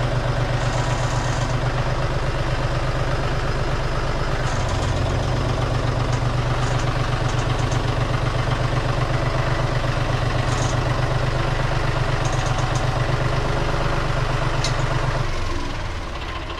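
An engine idling steadily with an even low pulse, then shutting off and running down about fifteen seconds in.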